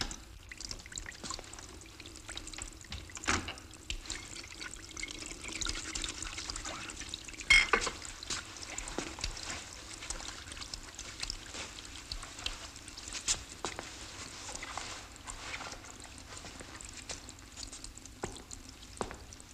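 Tap water running and trickling into a sink while hands are scrubbed, with a few scattered sharp knocks; the loudest knock comes about a third of the way through.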